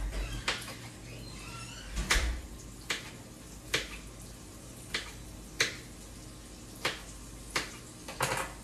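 Knife cutting on a cutting board: about nine sharp taps at a slow, uneven pace, roughly one a second.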